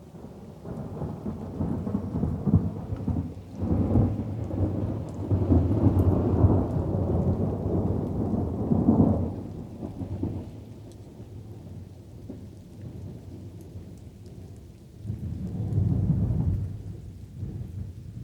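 Thunder rumbling over light rain: a long, rolling rumble that swells twice over the first half, dies down, then a shorter rumble swells again about three-quarters of the way through, with soft rain throughout.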